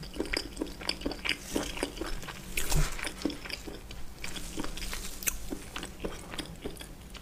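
Close-miked chewing and mouth sounds: a quick, irregular run of small wet clicks, with one heavier thump a little before the middle.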